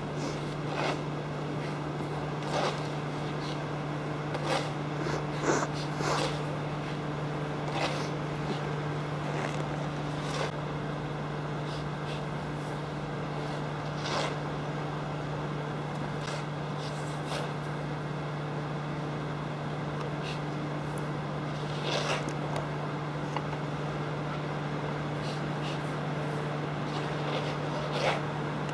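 A steady low hum runs throughout, with scattered sharp knocks every few seconds as a shovel and an ice pick strike the ice and packed snow.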